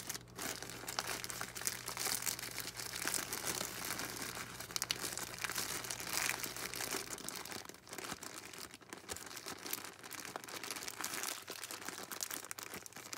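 Plastic zip bag holding newspaper and soil crinkling and crackling steadily as it is handled and filled with soil.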